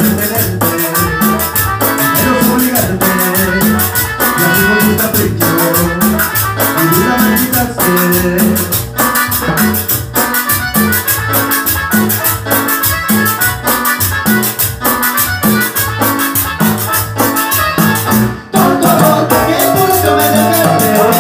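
Latin dance band playing an instrumental passage, with maracas shaking along to the beat. The music drops out for a split second near the end, then the band comes back in.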